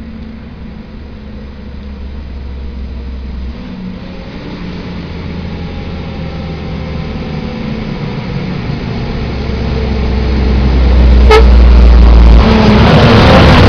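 Diesel engine of a Mercedes-Benz sugarcane road-train truck pulling several trailers, approaching and growing steadily louder. There is a sharp click a little after eleven seconds in, and the sound is loudest near the end as the truck and trailers reach the roadside.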